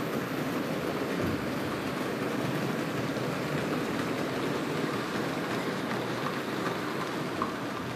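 Steady rolling noise of Märklin HO scale model freight wagons running along the layout's three-rail track, small metal wheels on rail.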